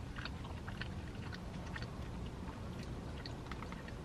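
Close-miked chewing of a mouthful of penne pasta: soft, irregular wet mouth clicks over a low steady hum.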